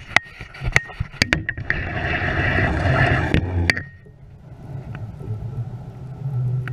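Several sharp knocks in a small rowboat in the first two seconds, then about a second and a half of steady whirring from a spinning fishing reel being cranked to bring in a hooked fish, which stops sharply.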